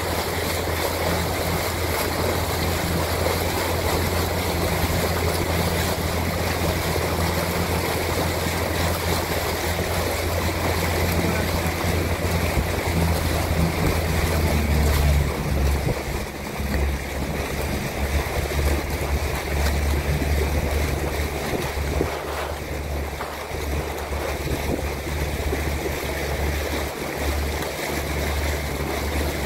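Steady low motor hum that shifts in pitch about halfway through, over continuous water rushing and wind noise on the microphone.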